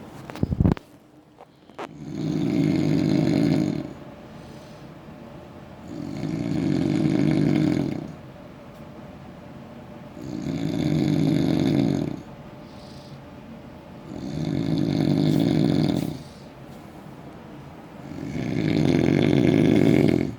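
Heavy snoring: five long, rasping snores, each about two seconds long and coming about every four seconds. A couple of sharp thumps and clicks come in the first two seconds.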